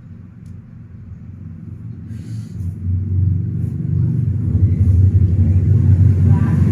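Low rumble of a motor vehicle's engine running nearby, growing louder from about two seconds in and then holding steady.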